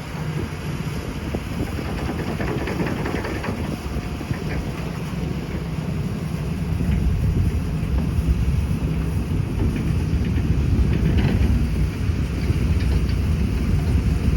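Hydraulic excavator's diesel engine running under load, growing louder about seven seconds in.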